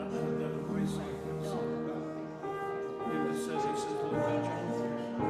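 Instrumental music playing, with long held notes.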